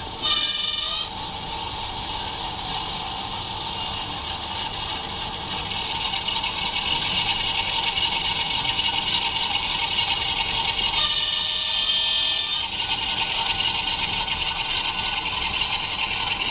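ESU V5.0 sound decoder in a model Dongfeng diesel locomotive playing a running diesel engine sound through a small speaker, a steady rasping, hissy sound. A brief pitched tone sounds just after the start and again for over a second about 11 seconds in.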